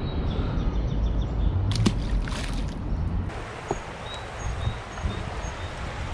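A low, steady outdoor rumble of river water and wind on the microphone, with a few short handling knocks about two seconds in.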